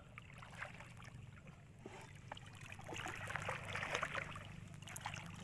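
Shallow water sloshing and trickling as someone wades and probes, with small splashes, growing louder about three seconds in.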